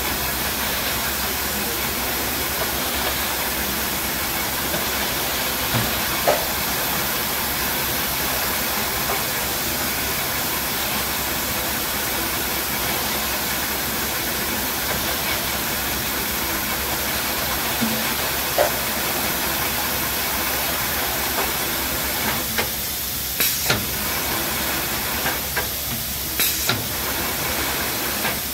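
Steady hissing machinery noise of a low-level palletizer and its powered roller conveyors running as shrink-wrapped cases of bottled water move through, with a sharp knock now and then and a quick run of clacks near the end.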